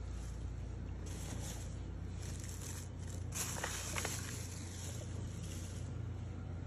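Quiet indoor background: a low steady hum with faint hiss, and a few soft clicks about halfway through.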